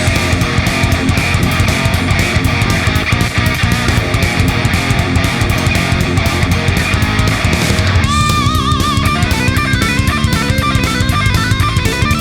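Hard rock backing music with a steady drum beat and guitar. About eight seconds in, the dense, thick sound drops away and a melodic lead line with wavering, vibrato notes takes over.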